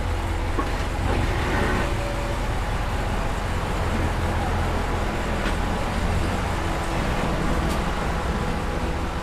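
Steady low rumble of road traffic, unchanging in level.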